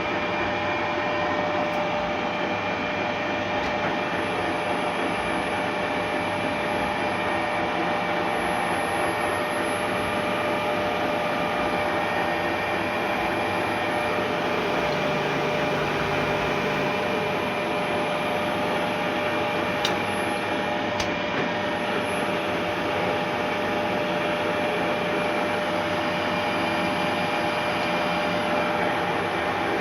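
Retrofitted Ruhla/WMW FUW250/IV milling machine running steadily on its VFD-driven three-phase AC motors: a loud, even mechanical hum with a steady high whine. Two brief clicks come about two-thirds of the way in.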